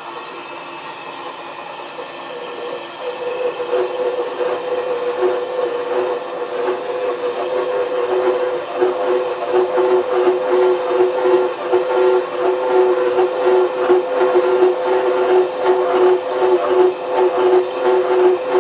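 Milling machine running a slitting saw at low speed, about 82 rpm, cutting into a metal block. The saw's cutting sound grows louder about three seconds in and then holds steady as two even tones over a rough grinding noise.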